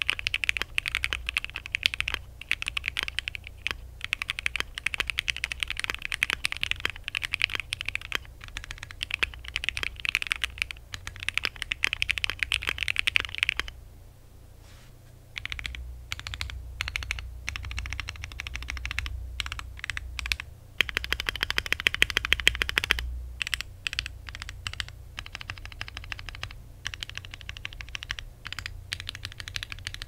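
Typing on a Bakeneko60 60% keyboard built with lubed and filmed Gateron Yellow linear switches, an FR4 plate, a gummy O-ring mount, polyfill in the case and double-shot PBT OEM-profile keycaps: a steady run of clean, crisp keystrokes. The typing pauses briefly about halfway through and then resumes.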